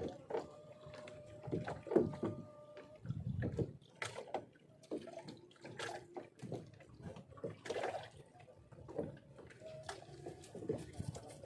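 Water splashing and dripping beside a small boat, with irregular knocks and clatter of handling on board.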